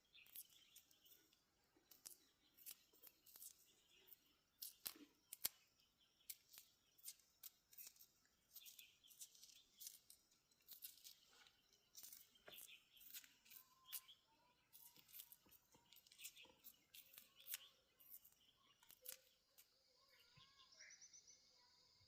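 Faint, irregular crackling and snapping of dry plant material, as of dry corn leaves and husks being handled and broken during hand harvesting. A few small bird chirps come in near the end.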